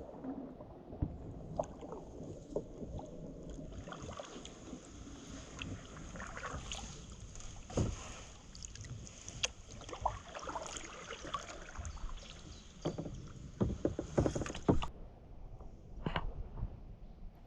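Kayak being paddled on a river: paddle blades dipping and splashing in the water, with sharp knocks of the paddle against the kayak, loudest about eight seconds in and in a cluster near the end.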